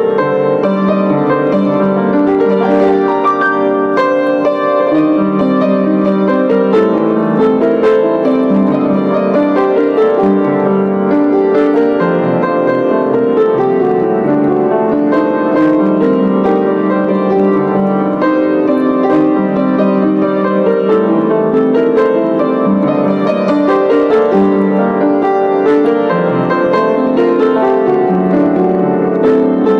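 Acoustic piano played solo, a continuous melody over flowing accompaniment with no pauses.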